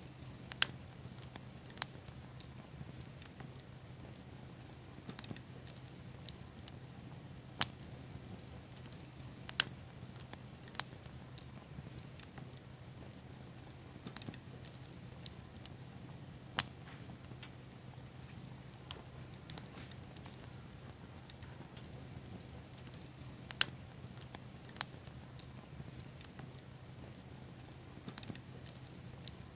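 Campfire crackling: sharp, irregular pops every few seconds over a quiet steady background.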